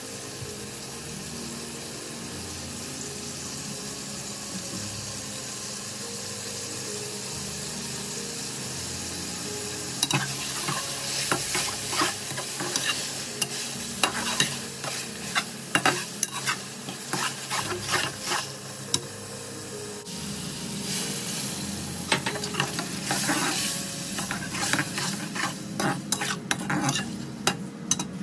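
Chicken masala sizzling in a pot on the stove. From about ten seconds in, a spatula stirs and scrapes through it, knocking irregularly against the sides of the pot.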